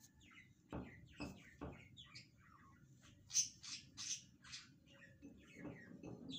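Birds chirping faintly with short, scattered calls that grow louder for a moment in the middle, and three soft knocks in quick succession about a second in.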